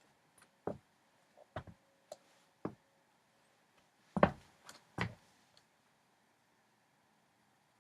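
Footsteps in Nike Air Foamposite One sneakers: six short thuds at an uneven pace, the two loudest about four and five seconds in.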